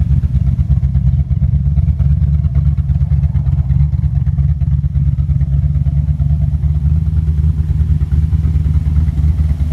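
Ford 5.0-litre (302) V8 idling steadily, its head gaskets just replaced. It is running a little rough, which the owners put down to ignition timing being off.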